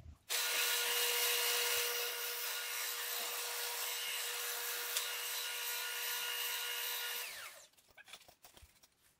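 Drill press motor running steadily while the bit drills a hole through aluminum plate and tube. It starts suddenly, then is switched off about seven seconds in and winds down.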